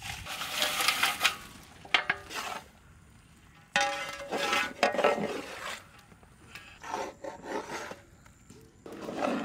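Ladle scraping along a large steel wok as fried fish pieces are stirred through thick chilli sauce, in about five rough strokes with short pauses between them.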